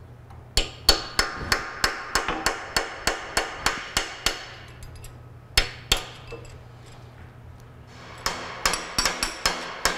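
Hand hammer striking steel on a vintage KUKA robot's bell crank, knocking a part loose so its shaft can be pulled out. The blows come in a fast run of about three a second with a metallic ring, then one lone blow, then another quick run near the end.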